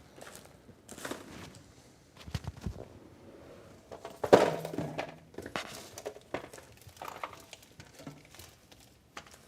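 Power supply being fitted and fastened into a computer case: scattered clicks, taps and knocks of metal parts being handled, with one louder knock about four seconds in.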